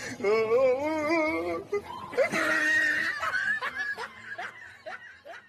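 A person laughing hard: a long wavering laugh, then a run of short rising bursts that fade near the end.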